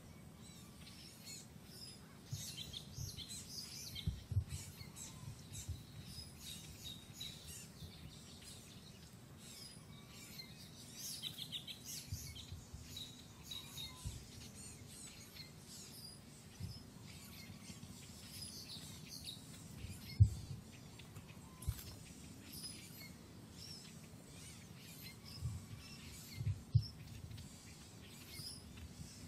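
Birds chirping in the background, with a few short low thumps; the loudest thump comes about twenty seconds in.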